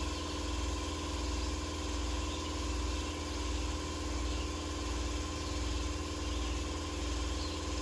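Air compressor running steadily with a low throb while inflating a tractor tire, the pressure climbing from about 35 to 42 psi.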